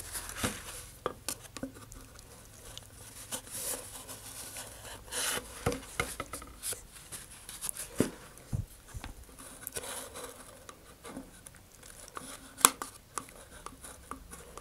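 Wooden dowel scraping and knocking around inside a cardboard rocket body tube, clearing out excess wood glue, with paper towel rustling as the tube is handled. Soft, irregular scrapes and taps, with one sharper click late on.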